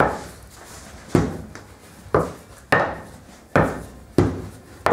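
Wooden rolling pin rolling out laminated croissant dough on a steel bench, with a sharp knock at the start of each stroke that fades off, about seven strokes, roughly one every second or less.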